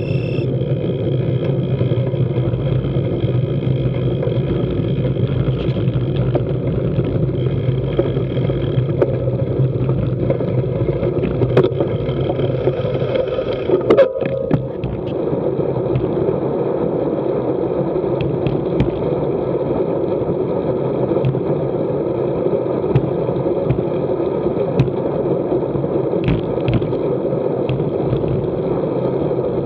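Steady wind and road noise on a bicycle-mounted camera while riding, with a short clatter about halfway through where the recording cuts.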